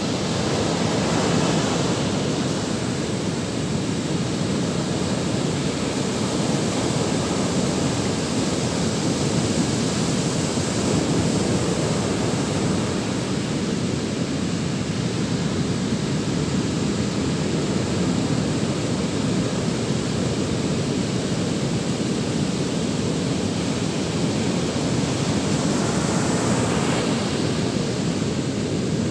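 Surf breaking continuously along a sandy beach, a steady rushing wash of waves, mixed with wind buffeting the microphone.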